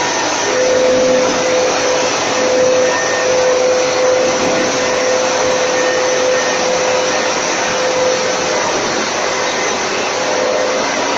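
125 mm ventilation duct fans running, a steady rush of moving air with a steady whine that drops out for a couple of seconds near the end.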